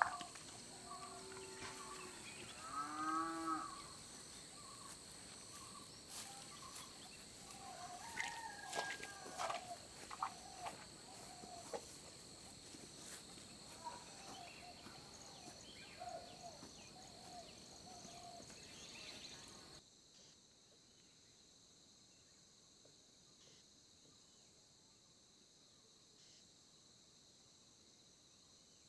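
Rural evening ambience: a steady high insect drone throughout, a cow lowing in the first few seconds, and scattered bird chirps and clicks. About two-thirds of the way in everything but a quieter insect drone drops away abruptly.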